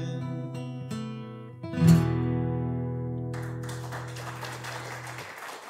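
Steel-string acoustic guitar playing a few closing notes, then a final strummed chord about two seconds in that rings out and fades, ending the song. Applause starts over the dying chord about a second later.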